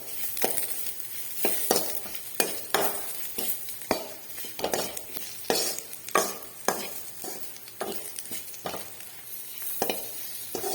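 Shallots, garlic and tamarind sautéing in hot coconut oil, sizzling, while a spoon stirs and scrapes the pan in repeated strokes, about one or two a second.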